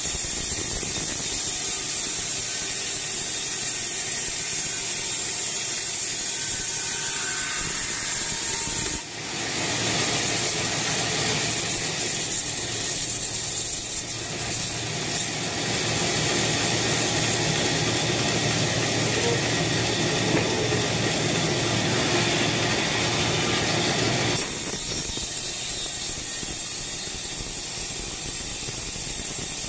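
Log band sawmill running, its band blade sawing through a squared teak log with a steady hissing, rasping noise. About nine seconds in the sound turns fuller and louder, and it drops back about twenty-four seconds in.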